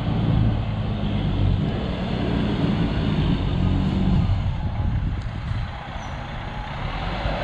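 Road traffic: a motor vehicle's engine drone under steady road noise, loudest for the first few seconds and then easing off.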